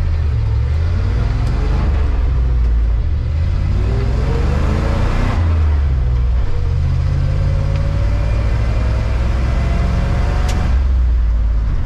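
Chevrolet C30 wrecker's engine heard from inside the cab, pulling through the gears of its manual transmission. The engine note rises, drops about five seconds in as a gear is changed, rises again, and breaks with a click near the end at the next shift.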